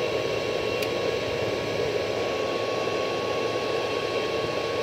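CB linear amplifiers and their 50-amp power supply making a steady rushing, fan-like noise with a thin, steady whine on top; the owner calls it noise from amps struggling on only a 50 amp supply.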